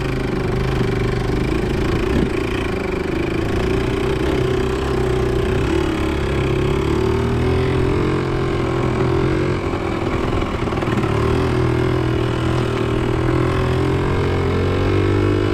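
Small trail motorcycle's engine running at low, fairly steady revs as it is ridden slowly over wet sand, its pitch climbing a little near the end.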